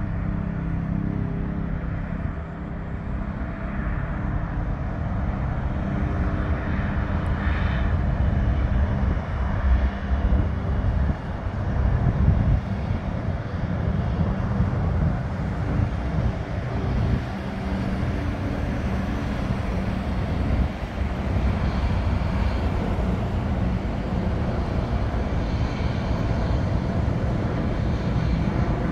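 Airbus A330-323's two Pratt & Whitney PW4000 turbofans at takeoff thrust as the airliner lifts off and climbs away: a continuous deep rumble, with a low steady hum in the first several seconds that fades, loudest about twelve seconds in.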